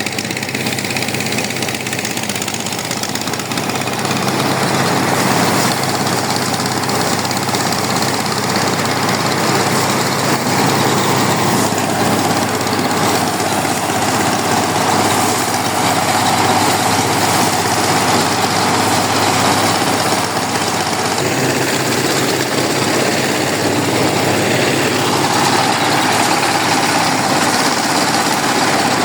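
The engine of a rice harvesting machine running steadily, getting a little louder about four seconds in.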